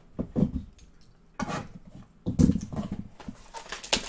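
Trading cards being handled and sorted in the hands, the stiff cards sliding and tapping against one another. There are a couple of soft low thumps, and a quick run of clicks near the end.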